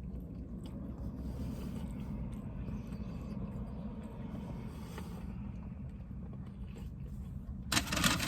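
A person chewing a grilled chicken wrap, the chewing faint over a steady low rumble. Near the end a sudden loud rustling starts.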